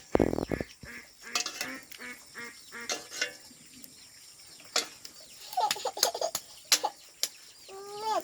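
Domestic poultry calling repeatedly in short honks and clucks, with a heavy thump right at the start and a few sharp clicks later on.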